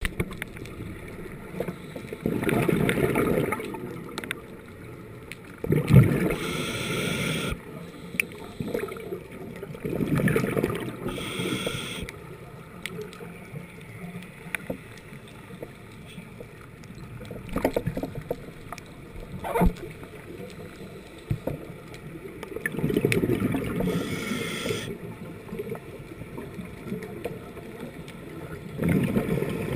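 Scuba breathing heard through an underwater camera housing: exhaled bubbles rumbling in bursts of a second or two, recurring every several seconds, some breaths with a higher regulator hiss.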